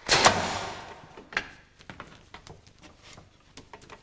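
A loud clunk that rings out and dies away over about a second, then a sharp click about a second and a half in, followed by a few faint knocks.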